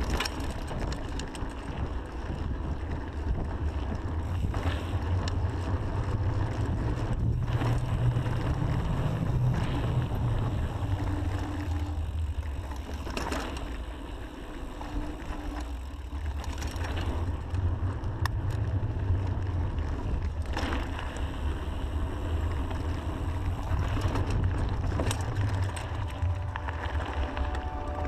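Mountain bike riding down a rough dirt and gravel trail: a steady low rumble of wind on the GoPro's microphone and tyres on the ground, with scattered sharp rattles and knocks from the bike going over bumps.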